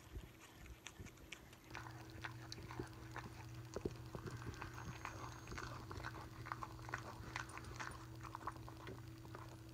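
A dog chewing a sticky marshmallow Peep: many quick wet smacks and clicks of its mouth and tongue, starting about a second and a half in, over a low steady hum.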